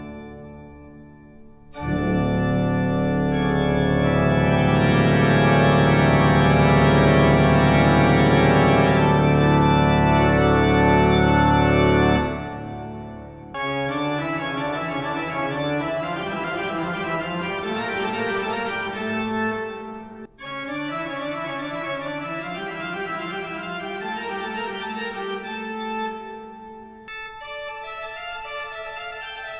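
Organ music: after a quiet start, a loud held passage of sustained chords, then after a short break a busier passage of quicker notes.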